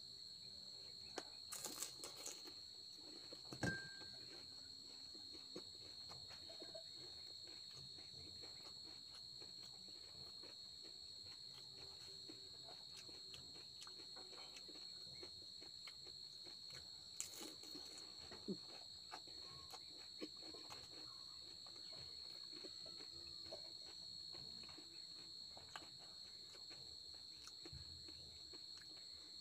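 Crickets chirping steadily in the background, with a few crunching clicks from puri shells being bitten and handled, mostly in the first four seconds and again around the middle.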